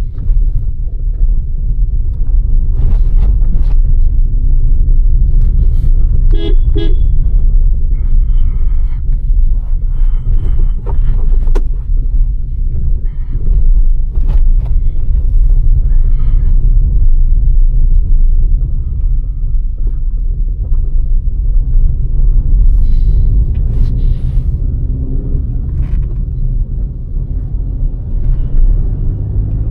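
Steady low drone of road and engine noise from a Maruti Fronx on the move, heard inside the cabin. A vehicle horn toots briefly about six and a half seconds in.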